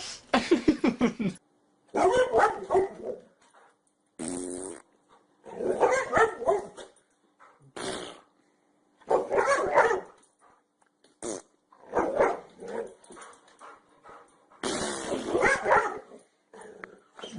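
Dogs barking and growling in about ten short bursts, each cut off abruptly by a second or so of silence.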